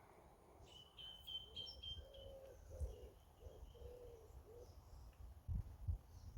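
Faint woodland birdsong: a small bird's high, thin trill about a second in, followed by a pigeon's low cooing phrase. Two soft low thumps come near the end.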